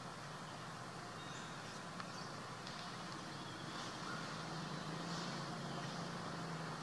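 Outdoor ambience with the steady low hum of a distant vehicle engine, growing a little louder in the second half, and a few faint high chirps above it.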